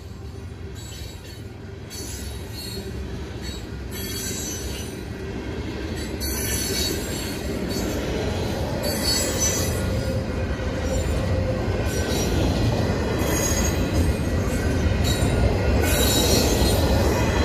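Loaded freight cars, tank cars and then double-stack container cars, rolling past with a low rumble that grows steadily louder, their wheels squealing on the rail in repeated high-pitched bursts. The crossing's electronic warning bell rings underneath.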